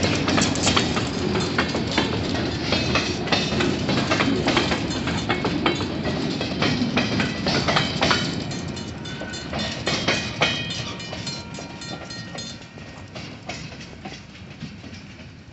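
Freight train's boxcars rolling past, the wheels clicking and clattering over the rail joints. The sound fades over the last few seconds as the end of the train moves away.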